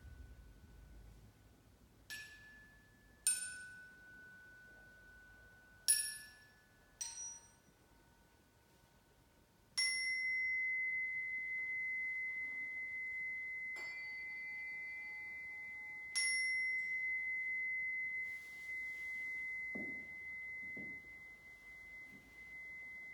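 Small metal sound-bath instruments struck one at a time, about seven strikes, each giving a bright high ringing tone that fades. From about ten seconds in, one high tone rings on steadily while further strikes sound over it, with a few soft low knocks near the end.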